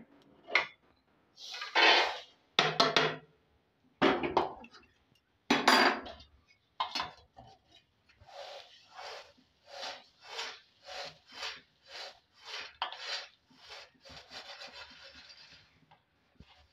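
Peanuts rattling against steel as they are scooped with a perforated steel ladle and shaken in a steel sieve to sift off the salt they were roasted in. A few loud clattering scoops come first, then rhythmic shaking about twice a second, ending in a steadier rustle.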